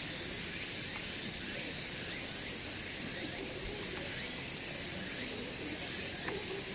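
A chorus of cicadas making a steady, high-pitched shrill drone that doesn't change.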